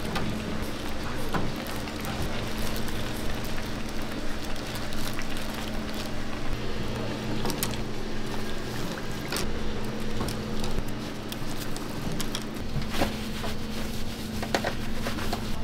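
Hot oil in a commercial deep fryer sizzling and bubbling around a chunk of radish over a steady hum, with a few sharp clicks near the end.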